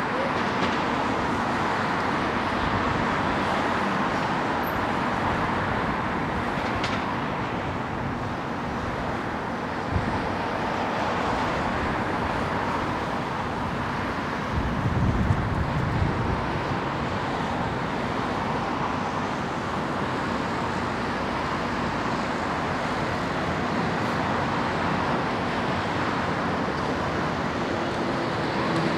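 Steady road traffic noise, with a single knock about a third of the way in and a brief low rumble about halfway through.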